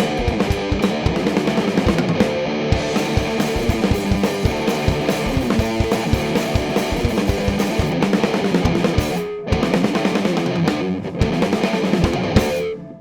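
Distorted electric guitar, a Gibson EDS-1275 double-neck through a Vick Audio Violet Ram's Head fuzz pedal and an Orange AD30 amp, playing a heavy rock riff with a drum kit. The band breaks briefly about nine seconds in, then stops with a short ring-out near the end.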